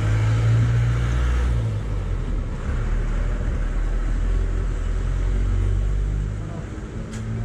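A motor vehicle's engine running nearby, a steady low rumble that eases a little near the end.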